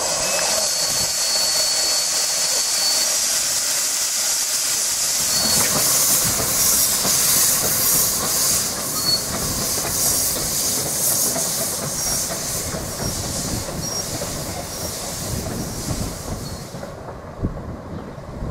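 Loud steady hiss of steam from a 15-inch-gauge, one-third-scale steam locomotive moving slowly over the yard's pointwork, with an uneven pulsing through the middle. The hiss cuts off suddenly about 17 seconds in.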